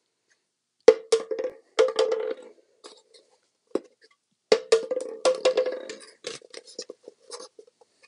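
Styrofoam cup being flipped and landing on a laminate wood floor: a series of sharp knocks, single ones early and a quick cluster of them from about halfway.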